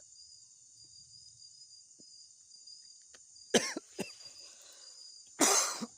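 A person coughing: a quick pair of coughs about three and a half seconds in, then a longer cough near the end. Insects buzz steadily and high-pitched throughout.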